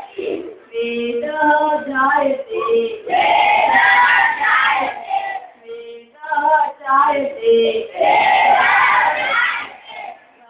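A group of children singing a Sanskrit action song in call and response: a sung line with clear pitch, then the whole group answering in a loud unison shout, twice.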